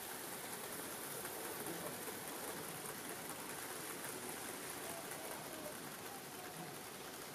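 Steady rattling hiss of model trains running on the layout's track, mixed with the room's background noise.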